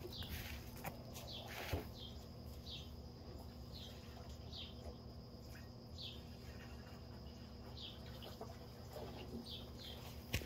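A small bird chirping: short, high, falling chirps repeated about once a second, faint, over a steady low hum.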